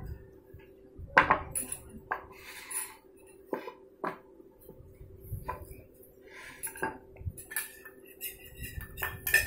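Irregular clinks and knocks of kitchen utensils: a metal spoon striking and scraping a small stainless steel bowl, and a wooden rolling pin being handled and put down. The loudest knock comes about a second in.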